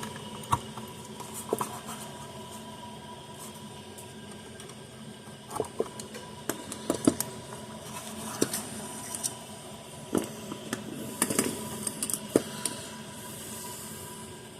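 Irregular light clicks and taps of wire leads, connectors and tools being handled while a replacement transformer is wired into an electric fence charger's circuit board.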